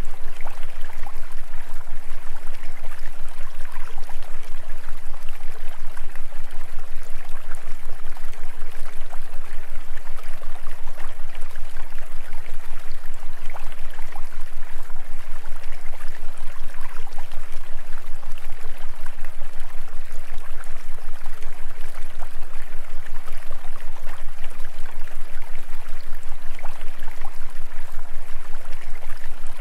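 Steady rushing noise like running water over a constant low hum, pulsing rapidly and evenly in level without change. It is the masking background of a subliminal audio track.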